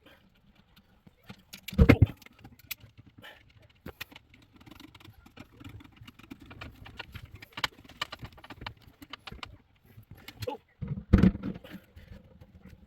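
Scattered clicks and knocks of parts being handled while installing a garbage disposal under the sink, with two heavier thumps, one about two seconds in and one near the end.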